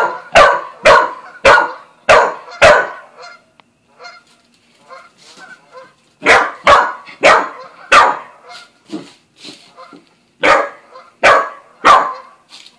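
Aussie/corgi mix dog barking at a cat in runs of about two barks a second. There are six barks, a pause of about three seconds, then four more, and three more near the end.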